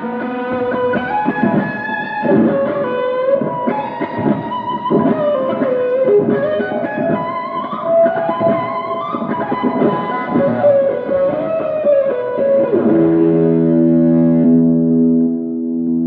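Electric guitar played through effects with some distortion, running a melodic line; about thirteen seconds in it settles on a held chord that rings on.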